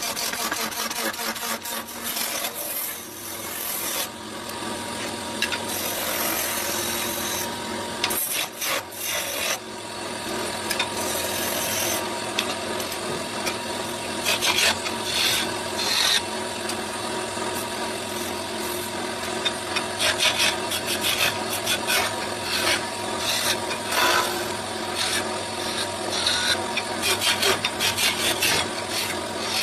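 Wood turning on a lathe: a cutting tool scraping a spinning wooden charpai leg in uneven strokes, over a steady motor hum.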